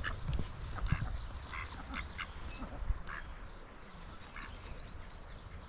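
Ducks quacking: a scattered series of short calls.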